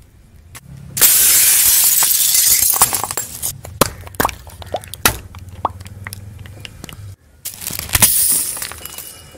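Objects, among them plastic bottles, crushed under a car tyre: a long loud crunch, then a run of sharp cracks and snaps, then a second loud crunch near the end.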